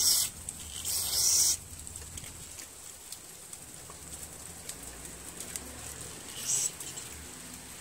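Short hissing sprays from an aerosol can, most likely carburetor cleaner sprayed on a small-engine carburetor: a brief spray at the start, a longer one about a second in, and a fainter one near the end.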